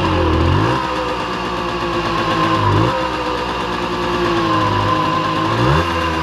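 Simson S51 B moped's single-cylinder two-stroke engine running, its pitch changing sharply three times about two and a half seconds apart.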